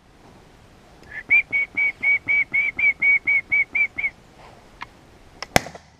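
A quick run of about a dozen short whistled notes, all at the same high pitch, about four a second for some three seconds. A single sharp click comes near the end.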